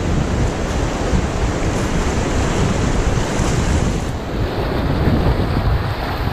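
River whitewater rushing around an inflatable kayak in a rapid, with wind buffeting the helmet-mounted camera's microphone. A higher hiss in the water noise drops away about four seconds in.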